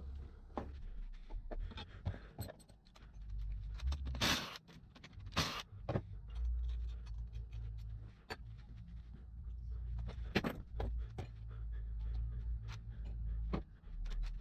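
Scattered clinks and scrapes of metal tools and parts being handled, over a low, uneven rumble.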